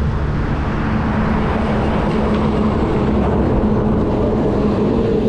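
Steady wind and road noise on a moving bicycle, with a steady low hum of traffic; a heavy lorry passes close by a few seconds in.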